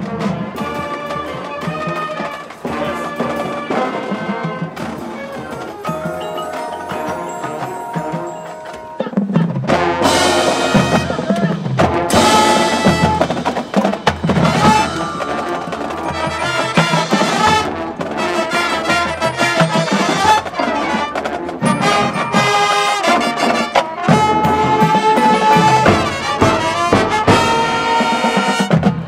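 Marching band and front-ensemble percussion playing a field show: a softer passage of brass and pit percussion, then the full band comes in loud about nine seconds in, with brass and drums.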